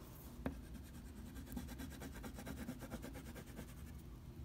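Faint scratching of a crayon scribbling back and forth on paper, with a light tap about half a second in.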